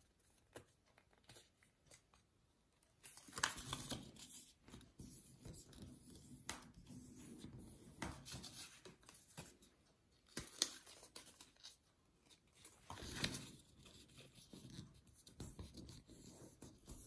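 Faint rustling and creasing of a thin card jewelry box as its flaps are folded and pressed into place by hand, with a few short crisp scrapes scattered through.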